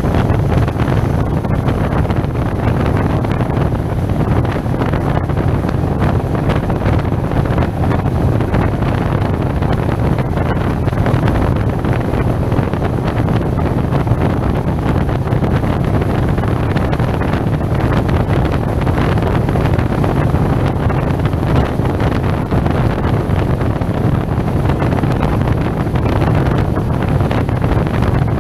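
Steady wind rush buffeting a helmet-mounted action camera's microphone as a SYM Maxsym TL 508 maxi-scooter is ridden at an even speed, with engine and road noise blended in underneath.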